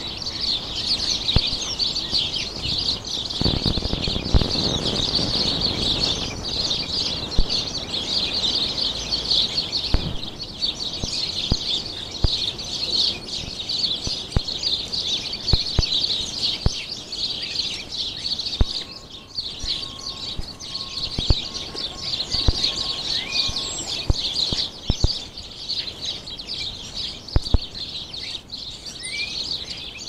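Continuous chorus of small garden birds chirping and twittering rapidly, with scattered light taps and clicks.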